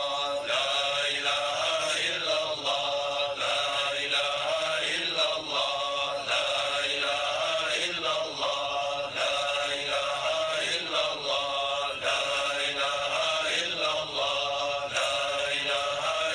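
Male voices chanting a Sufi devotional chant, repeating a short melodic phrase about once a second.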